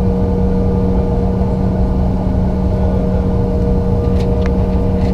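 Cabin sound of a Bombardier CRJ-900LR with its rear-mounted General Electric CF34 turbofans running steadily: a constant engine hum with a low rumble underneath.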